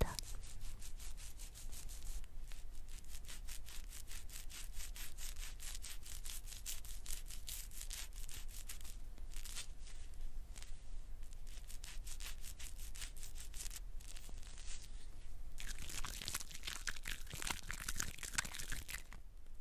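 Close-up rapid scratchy strokes of a cotton swab rubbing cream across the scalp and through the hair at a parting. Near the end it gives way to hands lathering foamy shampoo through wet hair.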